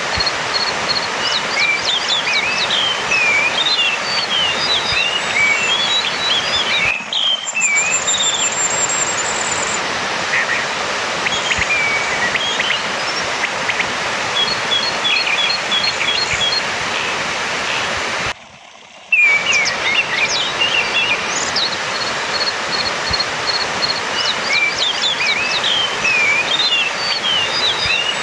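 Orange-headed thrush singing a varied run of short whistled, slurred phrases mixed with rows of quick repeated high notes, over a steady hiss. The sound cuts out briefly twice.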